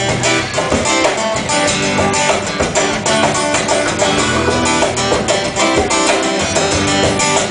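Live band playing the instrumental intro of a song: strummed guitars over a steady beat.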